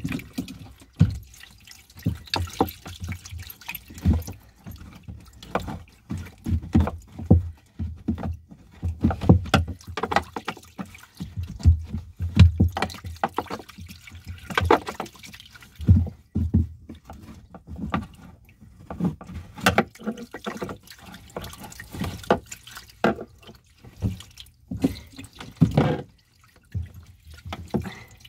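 Seawater spurting and splashing in through a hole drilled through a boat's hull below the waterline, with irregular knocks and clatter from a tool being worked in the hole.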